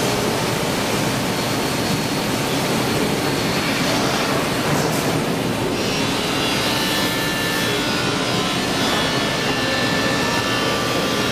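Running industrial machinery: a steady, even rushing noise with several faint whining tones, which come through more clearly about halfway through.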